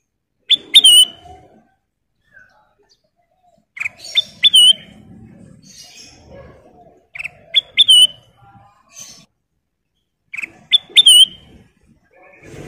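Kutilang emas bulbul calling in four short bursts about three seconds apart, each a few sharp notes followed by a quick up-and-down whistle.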